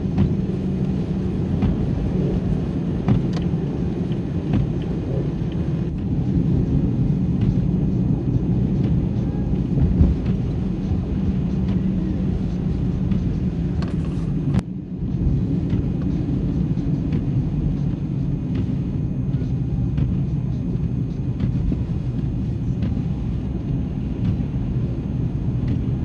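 Road noise inside a moving car on a snow-covered road: a steady low rumble of engine and tyres. The sound drops out briefly about fifteen seconds in.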